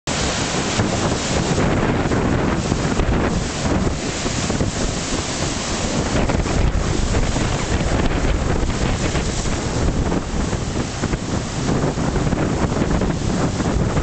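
Rough sea surf breaking on a rocky shore: a continuous, unbroken rush of waves. Strong wind buffets the microphone throughout.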